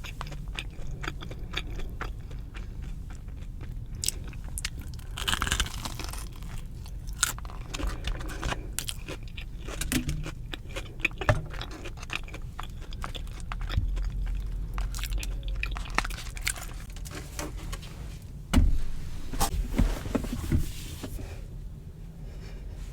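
Chewing and crunching on a crisp batter-fried Korean cheese dog, close to the microphone: irregular crisp crunches mixed with wet chewing, with one louder crunch near the end.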